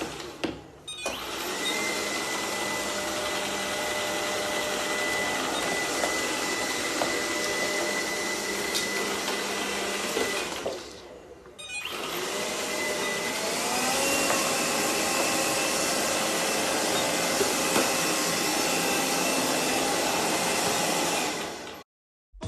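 Steady whir of a small electric motor, like a household appliance, with a thin high whine running through it. It fades out about ten seconds in and starts again a second later, rising slightly in pitch as it comes back up to speed, then cuts off shortly before the end.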